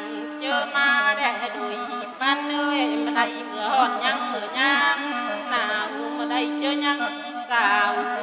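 A woman singing a Thai nhuôn folk song in long, wavering phrases, accompanied by a bamboo flute holding long low notes.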